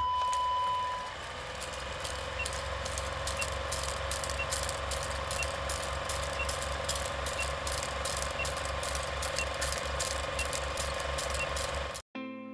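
Film-projector clatter over a film-leader countdown, with steady hiss. It opens with a steady test tone for about a second, then runs as a rhythmic mechanical clatter several times a second with a faint short beep every second, and cuts off suddenly near the end.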